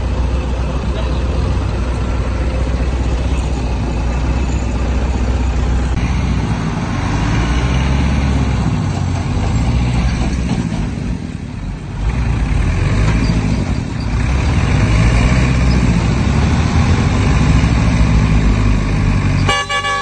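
Heavy diesel engine running hard under load, its revs swelling and easing several times, as a dump truck stuck in mud is pulled free.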